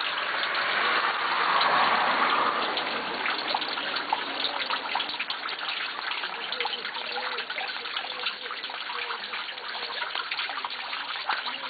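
Rainwater running and dripping down a storm drain beneath a rusty metal grate, a steady wash of water with many small drips and splashes, a little louder for the first two seconds.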